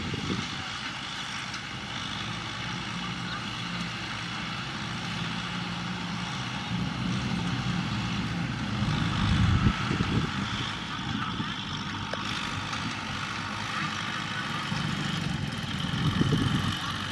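Kubota M6040SU tractor's four-cylinder diesel engine running steadily under load while pulling a rotary tiller through field soil.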